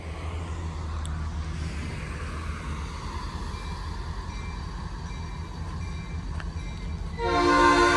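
A low steady rumble, then about seven seconds in a diesel freight locomotive's air horn sounds loudly and holds, several tones at once.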